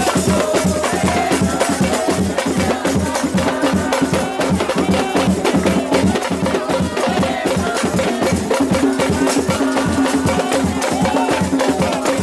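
Live samba de roda: pandeiros (jingled frame drums) and a hand drum play a fast, steady rhythm, with the surrounding crowd clapping along.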